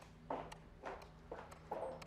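Footsteps on a hard floor, a woman walking at an even pace, about four steps.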